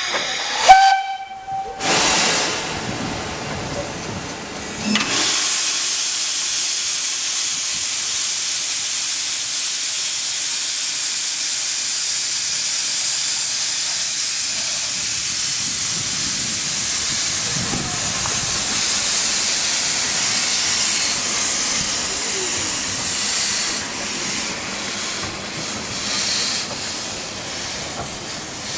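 Steam locomotive Talyllyn gives a short whistle blast about a second in, then steam hisses steadily from the engine for most of the time, easing off near the end.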